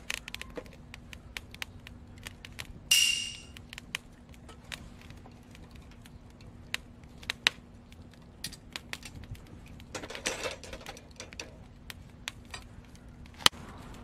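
Firewood burning in a small steel grill, crackling with irregular sharp pops. One loud crack with a short hiss comes about three seconds in, and a brief rustling burst comes around ten seconds in.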